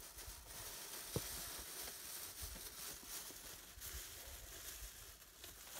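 Faint steady outdoor background hiss, with one small sharp tick about a second in.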